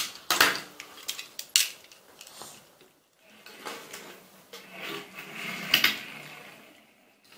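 Small die-cast metal toy cars clicking and clinking against one another and the tabletop as they are picked up and set down. The clicks come irregularly, loudest a little before the end.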